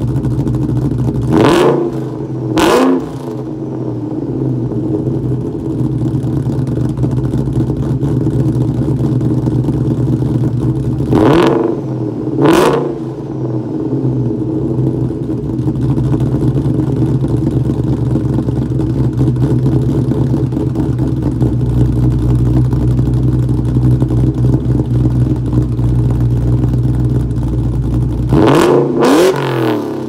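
A 2004 SVT Mustang Cobra's supercharged 4.6-litre DOHC V8 idles through the exhaust, which carries Comp Cams stage 3 camshafts, BBK long-tube headers, an off-road H-pipe and Borla Stinger mufflers. The engine is blipped twice in quick succession three times: near the start, about twelve seconds in, and near the end. Each time the revs rise sharply and fall back to idle.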